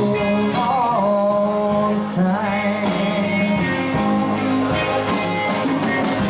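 Live band playing a song: acoustic and electric guitars, electric bass and drums keeping a steady beat, with a man singing the lead.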